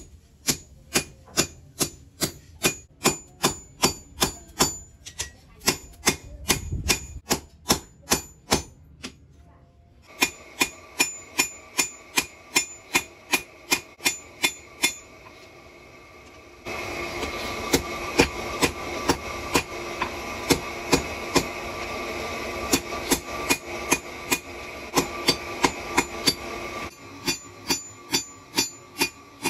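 Hand hammer striking red-hot bearing steel on an anvil, a steady run of ringing metallic blows about two to three a second, with a short pause about a third of the way in. A steady hum runs under the blows through the middle part, then cuts off.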